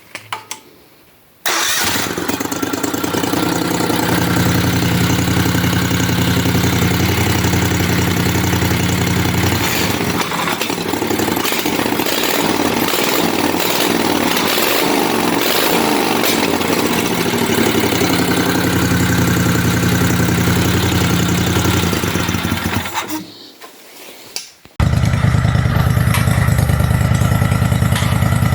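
Mini bike's V-twin engine running at a steady idle, with a rougher, uneven stretch in the middle where it is revved. It drops away briefly near the end and comes back abruptly.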